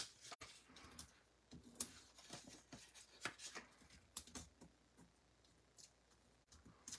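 Faint, scattered light clicks and rustles of paper and clear plastic craft pieces being handled.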